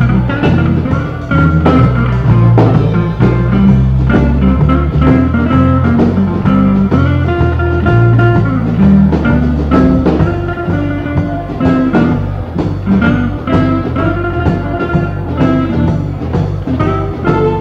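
Blues band recording: electric guitar over a bass line stepping through notes and a steady drum beat.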